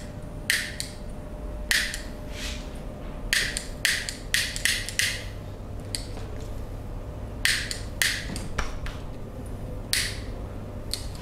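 About a dozen sharp, short strikes from a barber's hands working during a massage, irregularly spaced, with a quick run of them from about three to five seconds in.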